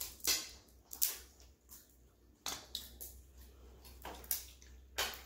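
Crab shells being cracked and broken open by hand: a series of sharp, irregular cracks and crunches.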